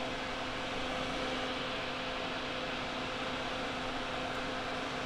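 Steady fan noise with a constant low hum.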